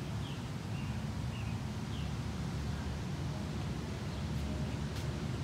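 Outdoor background noise: a steady low rumble with a few faint, short bird chirps in the first two seconds and a single sharp click about five seconds in.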